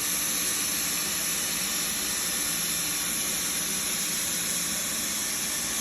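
Hot-air welding gun blowing a steady hiss as it melts a vinyl welding rod into a sheet-vinyl floor seam.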